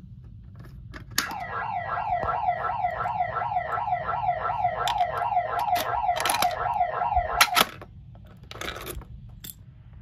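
Ademco 702 electronic siren on its wail setting, sounding a rapid rising-and-falling tone at about three sweeps a second. It starts with a click from the fire alarm pull station about a second in and cuts off with clicks at about seven and a half seconds, followed by a brief rattle near the end.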